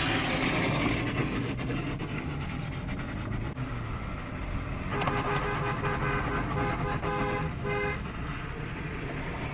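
Steady rumble and hiss of vehicles driving on a road, with a car horn tooting in several short blasts between about five and eight seconds in.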